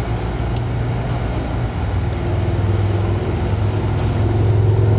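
Steady low machine hum that grows louder and steadier about two seconds in, with a light click about half a second in.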